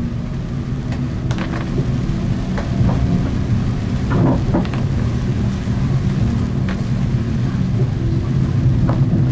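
A Siemens Avenio electric tram running along the track in rain. Its drive makes a steady low hum, and the wheels give several short knocks on the rails.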